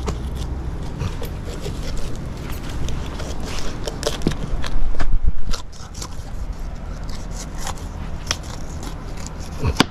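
A knife scraping and cutting through a sailfish's flesh and bone behind the head, with scattered clicks and knocks; loudest around five seconds in.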